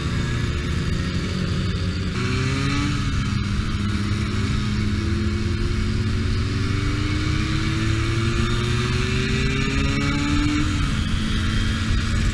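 Hercules K50 RL moped's 50 cc two-stroke engine running under way, its pitch rising slowly twice as it picks up speed.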